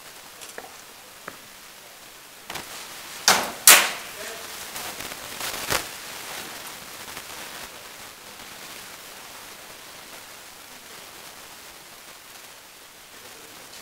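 Rattan weapons striking shields and armour in heavy sparring: a few sharp cracks, the loudest pair about three and a half seconds in, another one or two near six seconds, each ringing briefly in the hall.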